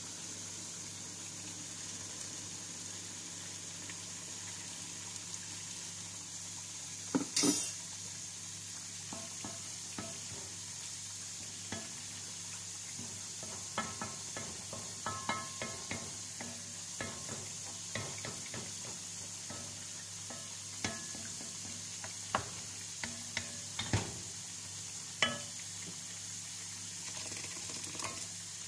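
A wooden spoon stirring rice in a stainless steel pot, with scattered short knocks and scrapes of the spoon against the pot over a steady hiss. A louder burst comes about seven seconds in.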